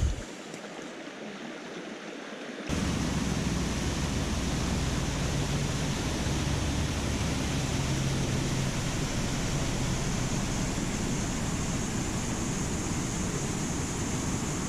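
Shallow boulder-strewn river flowing over rocks, a soft even rush. About three seconds in it changes abruptly to the much louder, fuller, steady rush of a waterfall pouring down over rock.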